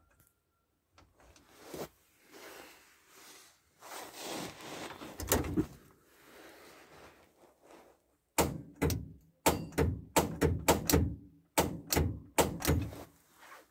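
Hand working a lever under the dashboard of an old T-40 tractor's cab, metal controls clunking: rustling and a single knock at first, then a quick run of sharp clunks, two or three a second, through the second half.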